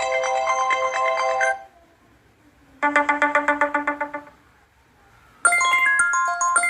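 Built-in iPhone 6s ringtone previews playing from the phone's speaker, one after another. A mallet-like melody cuts off about one and a half seconds in, a short run of rapid repeated notes plays around the three-second mark, and another chiming ringtone starts about five and a half seconds in.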